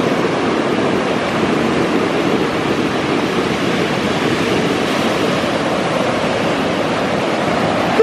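Ocean surf breaking and washing up the beach: a steady, loud rush of white water.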